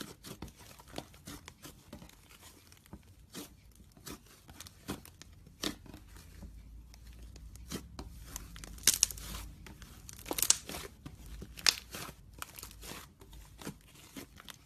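Homemade slime being squeezed and stretched by hand, giving irregular sticky crackles, pops and clicks that grow denser and louder about halfway through.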